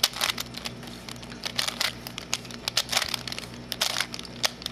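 Plastic layers of a Super Square One star prism puzzle clicking and clacking as they are twisted and flipped through a move sequence (R U R U*, repeated): a quick, irregular run of sharp clicks.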